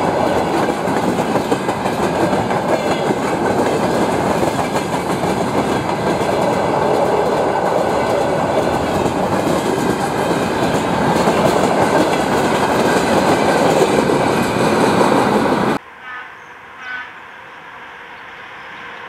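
A train running past close by: a loud, steady rush of wheel-on-rail noise that cuts off abruptly about three-quarters of the way through. A much quieter background follows, with two short faint tones and a rumble that slowly grows louder near the end.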